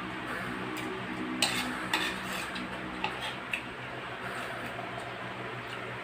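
Fingers and food tapping and scraping on a plate during a meal eaten by hand, giving a handful of sharp clinks, the loudest about a second and a half and two seconds in, over a steady low hum.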